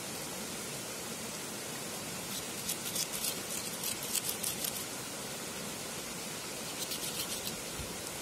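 Steady rush of a stream, with two spells of quick, sharp scraping clicks, a longer one a couple of seconds in and a short one near the end: a knife cutting through raw lamb, its blade scraping the stone underneath.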